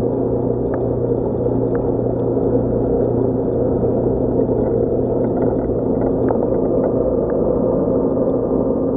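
Steady hum of reef aquarium pumps and circulating water, with a few faint clicks.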